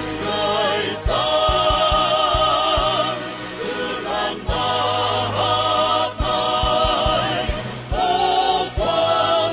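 Music: a choir singing with a wide vibrato over a sustained low bass, with a run of low drum thumps in places.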